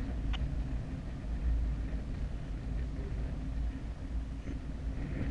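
Airflow buffeting the camera's microphone on a paraglider in flight: a steady low rumble, with a short click just after the start.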